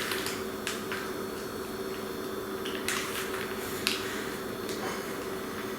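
A few short, sharp crackles of a plastic snack wrapper being handled and opened, over a faint steady hum.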